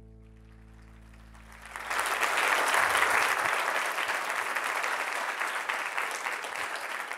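Audience applauding, starting about two seconds in and continuing steadily, as the last held chord of the video's music fades out.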